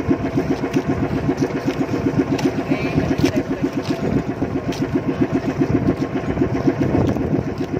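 Small fishing boat's engine running steadily with a fast, even chugging pulse.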